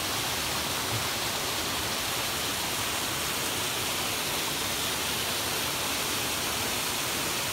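A small mountain waterfall rushing steadily, a continuous even wash of falling water.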